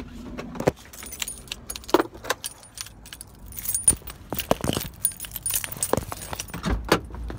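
Car keys jangling and clinking in irregular bursts, mixed with sharp knocks and rustles from a phone being handled on the move.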